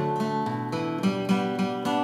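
Background acoustic guitar music, plucked notes at a steady pace.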